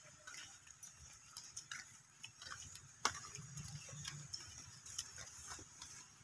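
Faint footsteps of several people walking in sandals on a dirt and stony path: light, irregular scuffs and clicks, with one sharper click about three seconds in.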